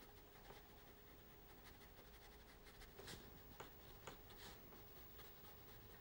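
Faint scratchy strokes of a fine paintbrush on textured watercolour paper, a few short strokes at a time, several of them between about three and four and a half seconds in, over quiet room tone with a faint steady hum.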